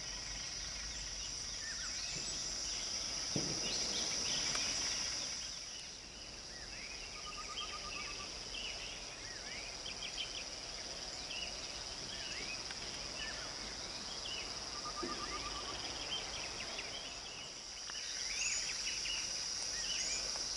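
Rural outdoor ambience: a steady high-pitched drone of insects that fades out about six seconds in and comes back near the end, with many short bird chirps and whistles throughout and, twice, a brief rattling trill.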